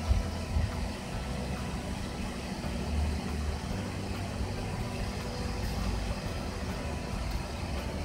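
Microwave oven running with its cover off on a cup of water, giving a steady low hum with its cooling fan turning. The higher-pitched hum is the sign that the repaired magnetron is working and heating again.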